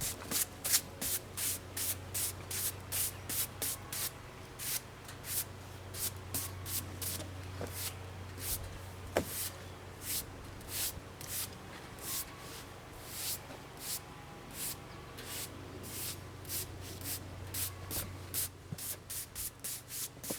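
Quick swishing strokes of sawdust being brushed off a freshly sawn black cherry slab, two or three a second, unevenly spaced, over a steady low hum.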